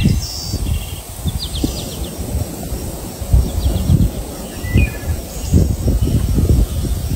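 Birds chirping outdoors, a few short high calls, over a loud, irregular low rumbling noise.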